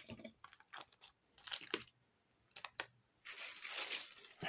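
Paper wrapping and packaging rustling and crinkling as it is handled: scattered light rustles and taps, then a longer stretch of crinkling over the last second or so.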